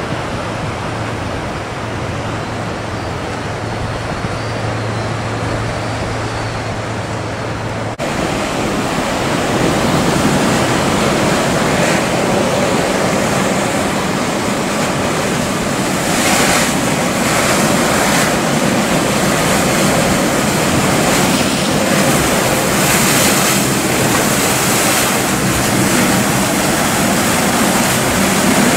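Choppy sea and waves rushing, with wind on the microphone; a low steady boat-engine hum sits under it for the first several seconds. About eight seconds in the sound jumps louder and rougher, with short swells of rushing noise now and then.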